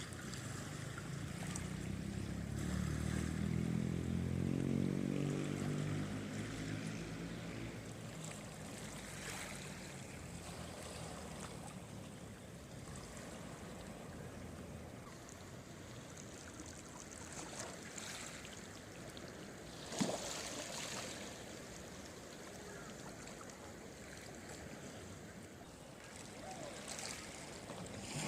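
Sea waves washing steadily on the shore. Over the first several seconds an engine hum swells and fades as something motorised passes. A single sharp knock comes about twenty seconds in.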